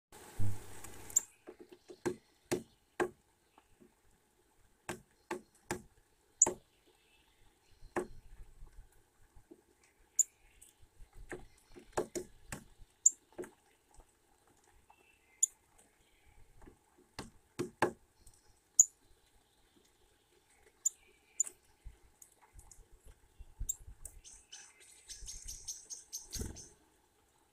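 Eurasian nuthatch at a wooden seed tray: sharp, irregular knocks on the wood as it hops about and pecks at sunflower seeds. A brief flutter of wings when it lands at the start and again as it takes off near the end.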